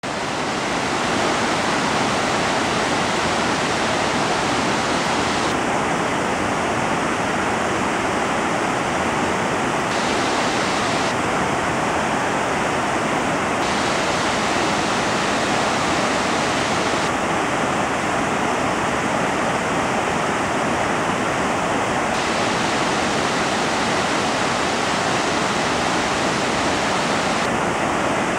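Waterfall pouring down a rock face into a plunge pool: a steady, unbroken rush of falling water.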